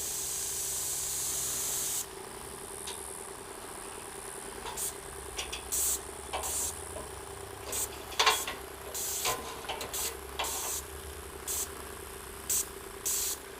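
Airless paint sprayer spraying roof sealer at low pressure through a 515 tip: a steady high hiss that cuts off sharply about two seconds in, then short spurts of spray as the trigger is pulled and released, over a faint steady hum.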